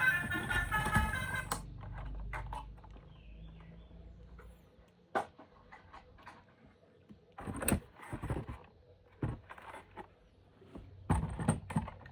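Scattered light clicks and knocks of hard plastic toys and packaging being handled, with a sharp knock about five seconds in and busier clusters near eight and eleven seconds.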